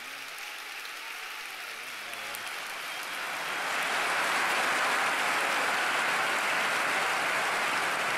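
Large crowd applauding, the clapping swelling to full strength about three to four seconds in and then holding steady.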